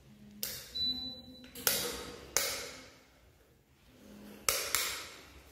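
About six sharp knocks or bangs in three loose pairs, each ringing on in the echo of a bare, unfurnished room.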